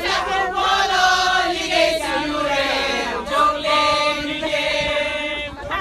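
A crowd of men and women singing a chant-like song together.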